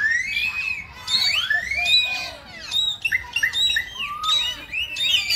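A busy chorus of high animal calls: many short squeaks and chirps, each rising and falling in pitch, overlapping one after another without a pause.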